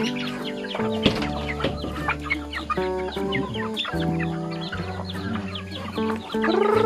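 A flock of chickens clucking, with many short calls, over background music of long held notes and a steady bass.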